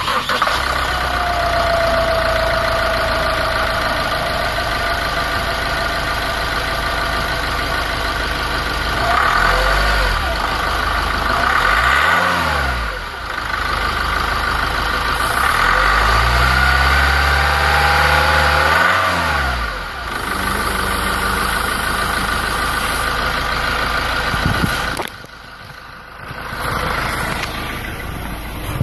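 LDV G10 van engine starting, then idling. It is revved up and let fall twice in the middle, the second time held longer. The sound dips sharply for a moment near the end.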